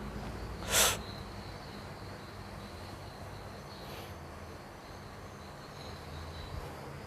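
A single short, sharp burst of breath about a second in, with a much fainter one near the middle, over faint, steady, high insect chirring.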